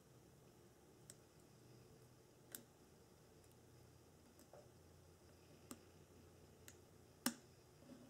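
A handful of faint, sparse metal clicks from pliers working inside a lock cylinder housing as a pin is held down on its spring and the follower is pushed in; the sharpest click comes about seven seconds in.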